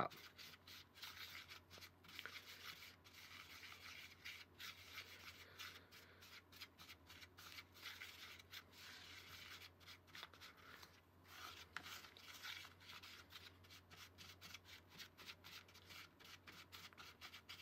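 Faint, quick, irregular scraping and rubbing of a toy mixing spoon stirring a dry, crumbly cookie mix with a little water in a small bowl as it works into a thick dough.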